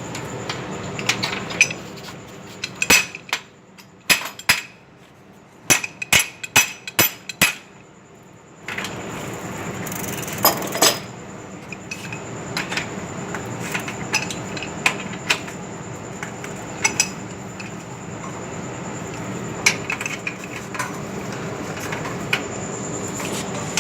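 Metal-on-metal clinks and taps of a spanner working on a bicycle's rear wheel, in irregular sharp strikes, with a quick run of them in the first third and scattered single clinks after that.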